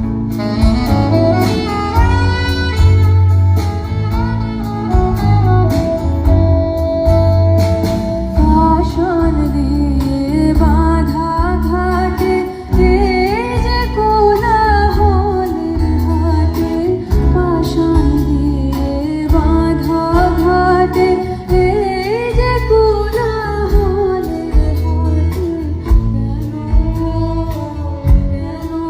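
Live band music at a sound check: a singer holding long, wavering melodic lines over bass and drums.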